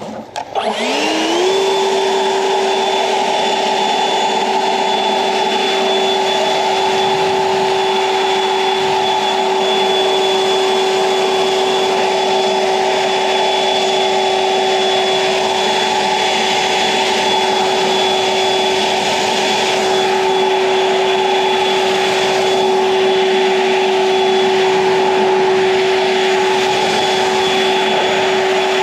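EGO Power+ 56V LB7650 cordless leaf blower spinning up about a second in with a rising whine, then running steadily at high speed: a fan whine over a strong rush of air.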